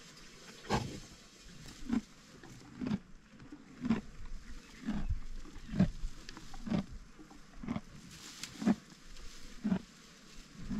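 Black rhinoceros feeding on dry grass, making a short sound about once a second as it crops and chews.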